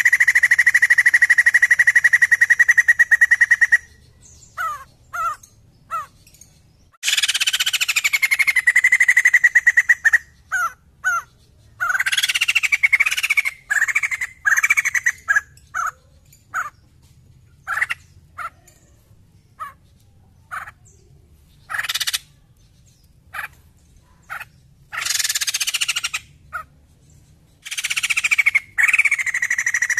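White-crested laughingthrush calling loudly: long rattling trills that drop in pitch and then hold level, in several bursts, with short sharp notes scattered in the gaps between them.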